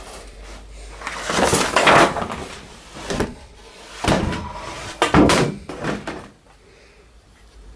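Handling noise close to the microphone: a few irregular knocks and rustles.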